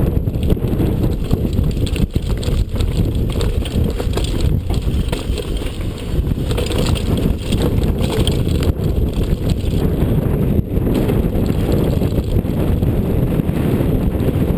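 Downhill mountain bike ridden fast over a rocky dirt trail: a steady wind rumble on the camera microphone with tyre noise on loose gravel, and scattered sharp knocks and rattles from the bike over bumps.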